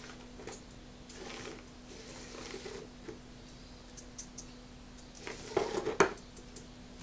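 A Yokomo nanoQLO micro 4WD RC rock crawler's tiny tyres scuff and scrabble over a molded recycled-paper terrain, with scattered light ticks. Near the end it tips over and tumbles, a quick cluster of clattering taps that is the loudest part.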